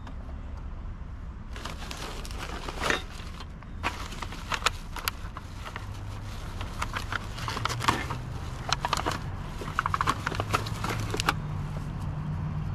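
Aluminum cans and trash being gathered up: a run of irregular crinkles, rattles and light clatters that stops about a second before the end, over a steady low hum that grows louder near the end.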